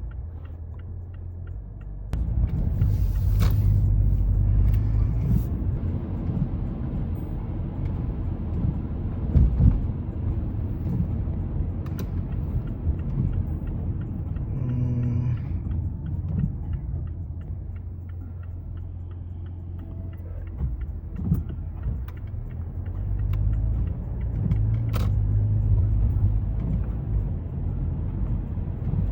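Road noise inside a Mazda 3's cabin while driving on wet roads: a steady low rumble of engine and tyres, with the hiss of tyres on the wet surface and a few clicks.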